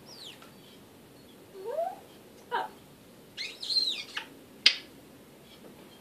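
African grey parrot calling in a string of short separate sounds: a falling whistle at the start, a rising whistle about a second and a half in, a warbling whistle a little past the middle, and a sharp click near the end, the loudest of them.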